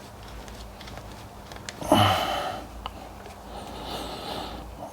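A person's short, audible breath about two seconds in, with a softer hiss near the end.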